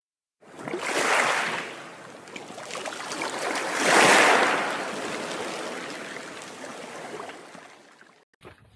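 Rushing, surging water sound effect for an underwater-themed logo intro, swelling twice, the louder swell about four seconds in, then slowly fading away.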